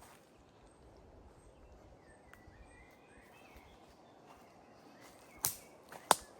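Two sharp cracks about half a second apart near the end, over a faint woodland background with a few faint bird chirps.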